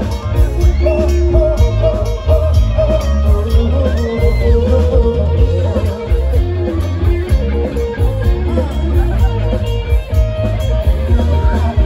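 Live band music played loud: electric guitars over a steady drum beat and heavy bass.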